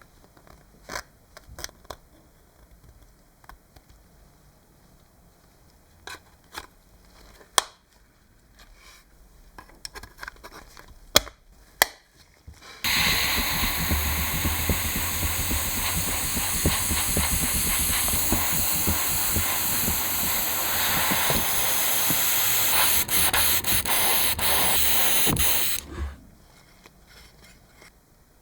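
Scattered light clicks and taps. Then, about halfway through, a loud steady spraying hiss starts abruptly, runs for about thirteen seconds and cuts off suddenly.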